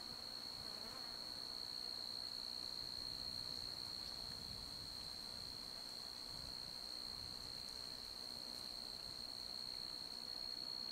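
Insects trilling in one steady, unbroken high tone, faint.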